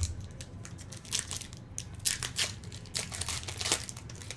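A pack of 2014 Topps Strata football cards being torn open: the wrapper crinkling and tearing in a run of irregular crackles, after a soft thump at the start.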